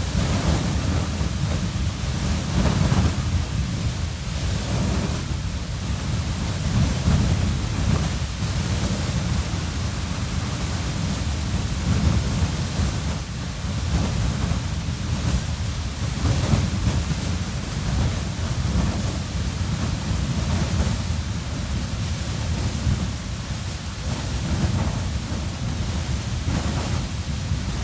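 Beehive Geyser erupting: a steady rush of water and steam with a heavy low rumble, rising and falling slightly but never letting up.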